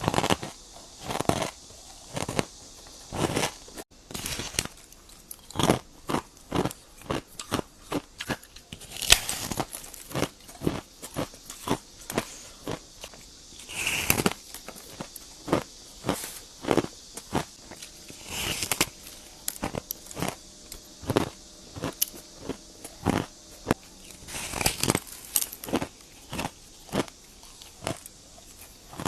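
A person biting into and crunching ice: a run of sharp crunches, roughly one or two a second, with a few louder bites among them.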